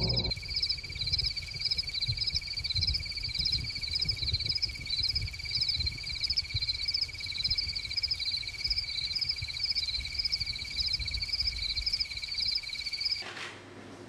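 Chirping insects: a steady high trill with a pulsing chirp above it, about two a second, over a low rumble; it cuts off suddenly near the end.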